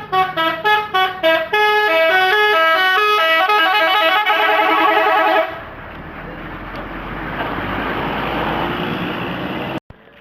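Telolet musical air horn on a PO Sumba Putra bus: about five short toots, then a quick run of changing notes played as a tune for about four seconds. After it a rising rumble of bus engine and road noise, which stops abruptly near the end.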